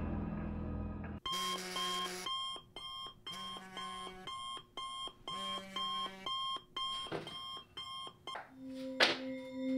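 Smartphone alarm ringing: a melody of beeping electronic tones that repeats over and over, then stops about eight seconds in as it is switched off. A sharp click follows, then a low sustained music tone.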